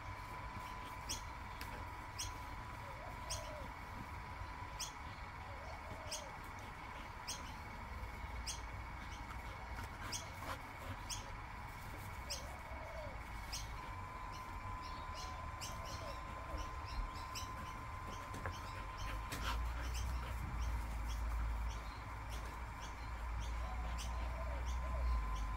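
A small bubble machine's motor humming steadily, with a short high chirp repeating about once a second and coming more often in the second half. A low rumble builds near the end.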